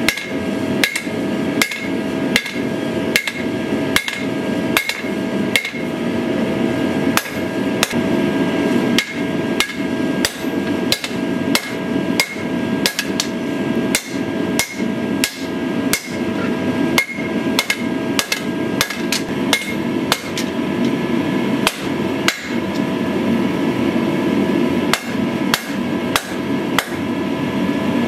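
Blacksmith's hammer striking a knife blade on an anvil during forging, steady blows about two a second. Each blow is followed by a lingering metallic ring, over a steady low rushing noise.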